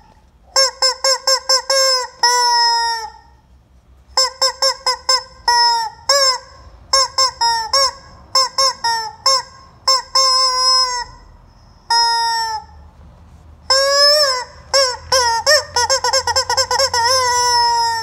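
Yellow rubber screaming chicken toy squeezed by hand over and over: a series of loud, pitched squawks, some in quick runs of short ones and a few longer drawn-out ones, with brief pauses between.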